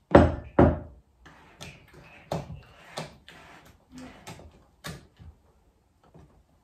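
Silicone spatula knocking and scraping against a glass mixing bowl as batter is tapped off it: two sharp knocks at the start, then lighter taps and scrapes every half second or so that die away near the end.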